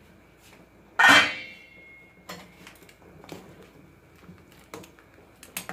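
Stainless steel cookware: one loud metal clang about a second in that rings on for about a second, then light taps and scrapes of a metal ladle in a pot of boiling soup.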